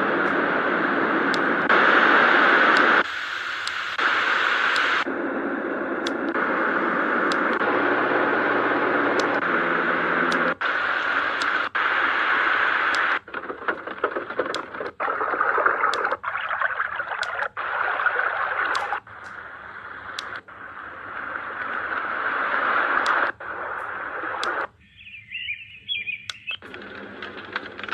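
White noise sound machine switching from one built-in sound to the next, about every second or three. Each is a steady hiss or rush of a different pitch and cuts off abruptly into the next, with faint clicks along the way. Near the end comes a brief high warbling sound.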